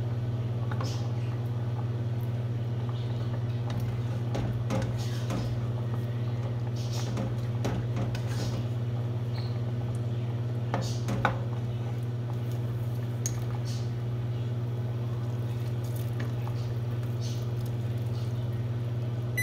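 Slotted metal spoon stirring and scraping thick Alfredo sauce in a metal pot, kept moving so it doesn't burn on the bottom, with scattered clinks and scrapes over a steady low hum.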